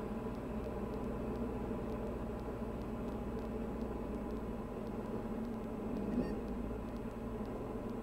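Diamond DA40's four-cylinder piston engine and propeller droning steadily in the cockpit on final approach, heard as a low, even hum.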